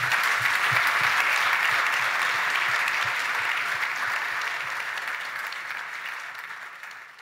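Large audience applauding, a dense steady clapping that fades away over the last couple of seconds.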